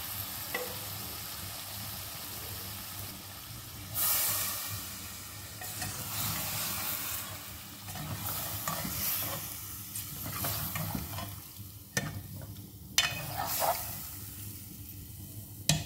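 Chicken masala sizzling in an aluminium pot on a gas flame while a steel spoon stirs it. The sizzle swells louder several times, and a few sharp clinks come from the spoon against the pot.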